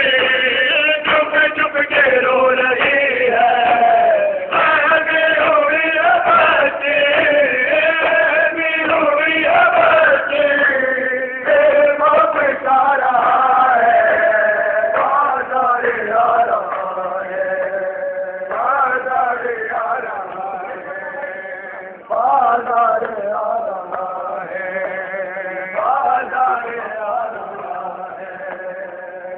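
A crowd of men chanting a noha (mourning lament) in unison. The lament is punctuated by regular slaps of hands on bare chests (matam), plainest in roughly the first ten seconds; the chanting grows somewhat quieter later on.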